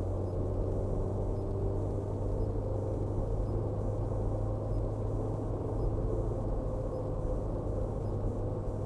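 Steady low hum of a moving car's engine and tyre noise, heard from inside the cabin.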